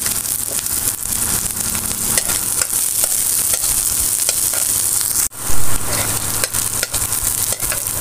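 Sliced garlic and onion sizzling in a wok, with a spatula scraping and tapping against the pan as they are stirred. A little past five seconds in, the sound breaks off for an instant and comes back in a brief louder burst.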